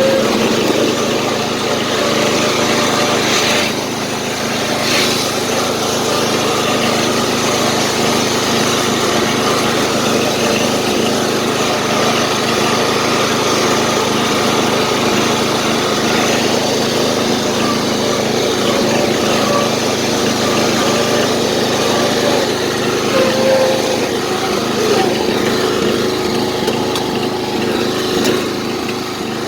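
Old riding lawnmower's small engine running steadily, with two brief sharp knocks about four and five seconds in.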